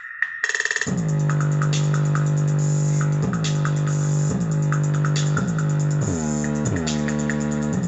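Electronic music with a drum-machine beat and a steady bass line, played through a pair of 15-watt speakers driven by a PAM8610 amplifier board. The music drops out briefly at the start, then the full beat comes back in about a second in.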